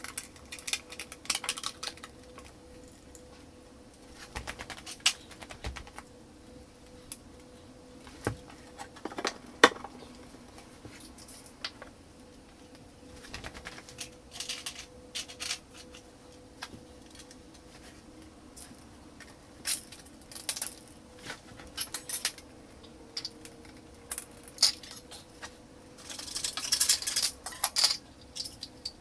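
Scattered clicks, knocks and metallic clinks from fitting a kitchen kickboard: the board knocking against cabinet legs and tile, and small metal plinth clips being handled. Near the end comes a dense run of clinking.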